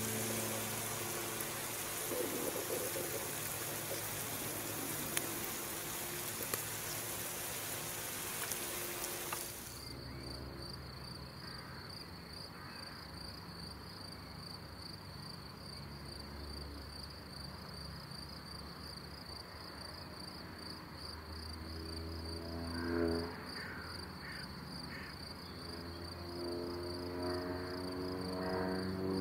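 Steaks sizzling in a perforated stainless grill pan over the fire, a broad steady hiss. After about ten seconds this gives way to crickets chirring steadily in two high pulsing tones, with a few notes of music coming in near the end.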